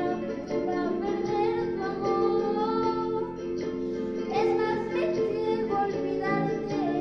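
A teenage girl singing a solo song, her voice gliding over a steady instrumental accompaniment.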